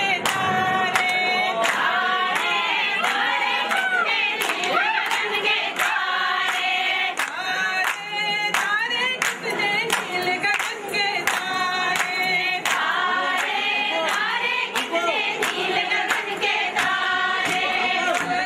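A group of women singing a traditional Kashmiri mehendiraat song together, with a steady beat of hand claps about twice a second.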